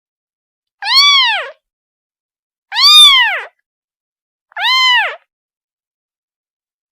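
A kitten meowing three times, about two seconds apart, each call short and high, rising then falling in pitch: a kitten calling for its mother.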